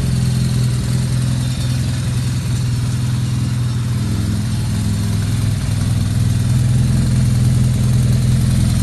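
BMW R1200R's boxer twin idling steadily on its first start, still cold, after a gearbox rebuild. There is no knocking or rattling from the gearbox: the primary-shaft damper noise is gone.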